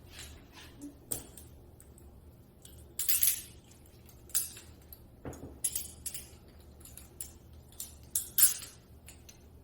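Metal handcuffs and restraint chain clinking and rattling in a series of short jangles as they are handled and fitted.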